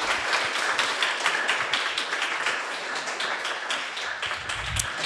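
Audience applauding in a room, a dense patter of many hands clapping that slowly dies down near the end.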